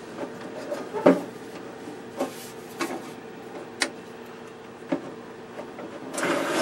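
The sheet-metal cabinet and carrying handle of a Tektronix 465 oscilloscope being handled during disassembly: a few separate light clicks and knocks, then near the end a longer, louder scraping as the cabinet slides along the chassis.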